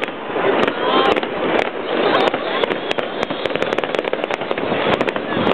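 Fireworks going off in quick, irregular succession: many sharp bangs and crackles, several a second, over a steady wash of distant explosions.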